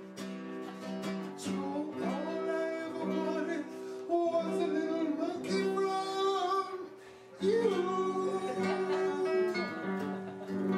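A song: a singing voice over acoustic guitar chords, with a short lull about seven seconds in.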